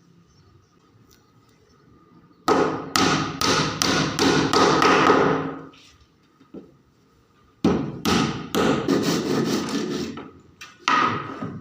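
Quick hammer blows on wood in two runs of about three seconds each, with a short burst near the end.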